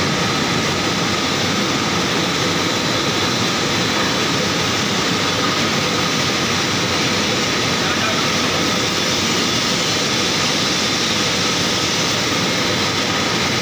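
Paper machine running in a mill: a steady, dense mechanical drone from the dryer section and drives, with a few faint steady whining tones on top.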